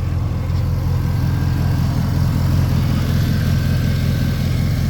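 Fifth-generation Chevrolet Camaro SS's 6.2-litre V8 idling steadily, just after an oil change.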